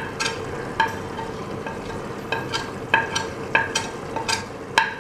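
Mutton frying in a pressure cooker with a low sizzle while a spice is stirred in. Utensils knock against the metal pot about ten times at uneven intervals, each knock ringing briefly.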